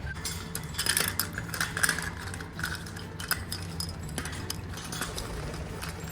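Small metal pieces clinking and jangling in quick irregular bursts, thickest in the first half and thinning out toward the end.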